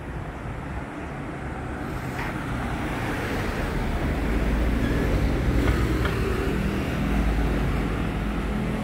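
Low rumble of an approaching Taroko Express TEMU1000 tilting electric train sounding from inside the tunnel, mixed with road traffic. It grows steadily louder through the first half and stays loud.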